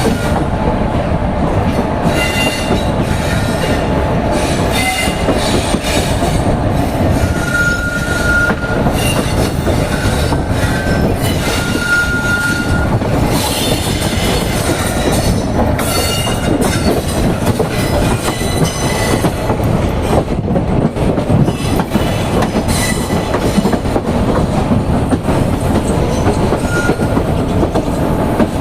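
Train wheels running on the rails in a loud, steady rumble, with several brief high-pitched wheel squeals, the longest about eight and twelve seconds in.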